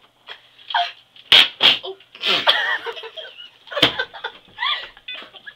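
Girls laughing in short, broken bursts, one with her hand over her mouth.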